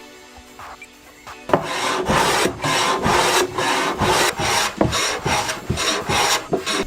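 A hand tool worked back and forth on plywood in rhythmic rasping strokes, about two a second, starting after a sharp knock about a second and a half in.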